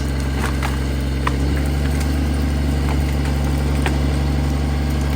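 Engine of a heavy machine idling steadily, a low, even running sound, with a few faint light clicks over it.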